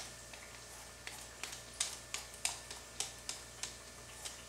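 Hand vegetable peeler scraping strips of skin off a zucchini in quick, even strokes, about three a second, over a faint steady low hum.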